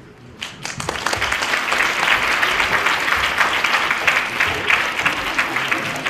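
Audience applauding: many hands clapping together. It starts about half a second in and quickly builds to a steady level.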